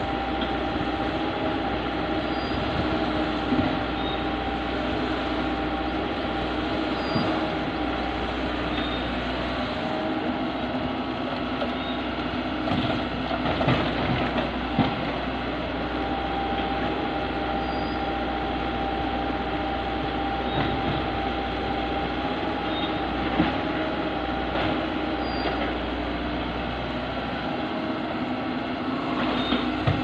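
Komatsu tracked excavator's diesel engine running steadily under working load, with a steady high whine alongside, while it digs and loads soil into a dump truck. A few knocks and clatters come about halfway through.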